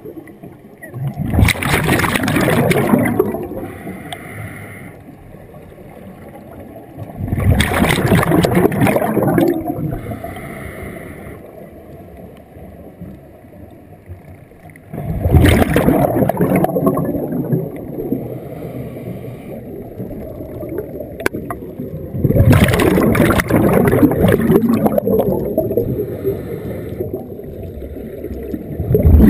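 Underwater scuba breathing through a regulator: four loud gurgling rushes of exhaled bubbles, one about every seven seconds and each lasting two to three seconds, with a faint hiss of inhalation in the quieter gaps between.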